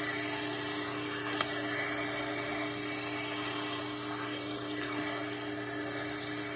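Vacuum cleaner running steadily with an even motor hum.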